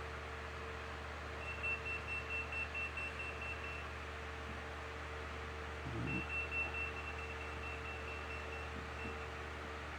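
Handheld radiation detector beeping: two runs of rapid high-pitched beeps, about five a second, each lasting a couple of seconds, over a steady low electrical hum.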